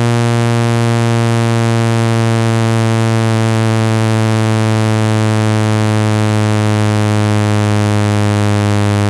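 Synthesized speaker-cleaning tone: a loud, steady low buzz rich in overtones, played through a phone speaker to shake out water and dust.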